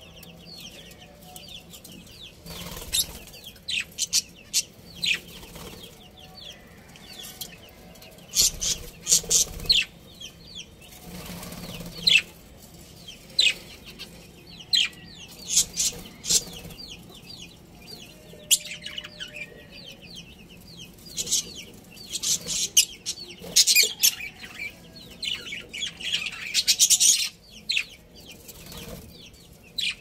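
A flock of budgerigars chirping and chattering, a continuous high twittering broken by clusters of louder, sharp chirps.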